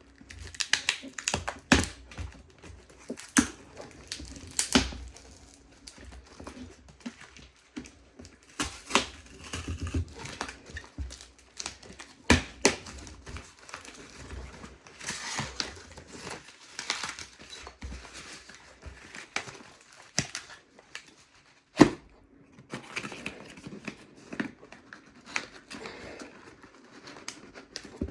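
Cardboard box and packaging being opened by hand: tape tearing and paper or plastic crinkling, with many scattered sharp clicks and knocks.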